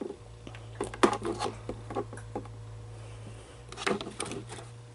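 Light clicks, taps and rubbing of small plastic toy figures being handled, with a faint low hum underneath.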